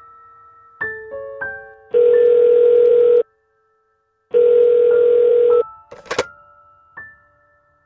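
Telephone ringback tone heard down a phone line: two rings, each a steady buzzing tone lasting about a second and a quarter with a second's silence between them. A sharp click follows about six seconds in as the call is picked up. Soft piano notes play around them.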